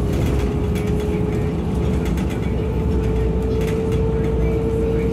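Interior of a SEPTA city bus on the move: steady low engine and road rumble with a steady drivetrain whine that edges up in pitch in the second half, and light cabin rattles.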